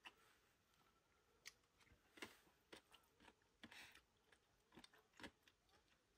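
Near silence with faint eating sounds: chewing and a scatter of soft clicks and smacks as someone eats noodles with chopsticks from a metal pot.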